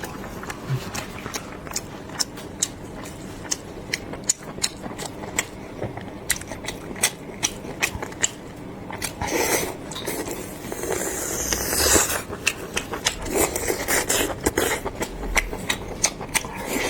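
Close-miked chewing with many short wet mouth smacks and clicks. A louder, longer noisy stretch comes about nine to twelve seconds in.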